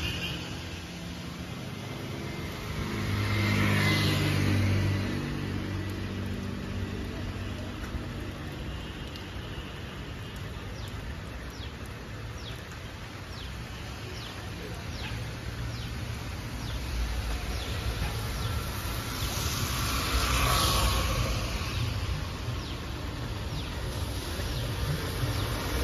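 Steady outdoor rain hiss, with a vehicle passing twice, about four seconds in and again around twenty seconds, the first with a low engine hum.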